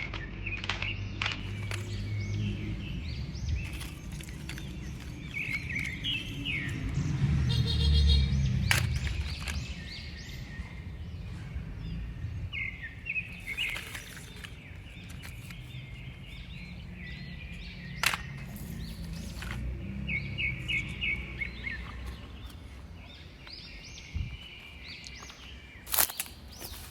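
Small birds chirping in short repeated phrases over steady outdoor background noise, with a low rumble swelling about a third of the way in and a few sharp clicks later on.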